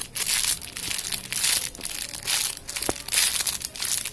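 Clear plastic wrapping crinkling in uneven repeated bursts as squishy toys sealed in their bags are picked up and handled, with one sharp tick about three seconds in.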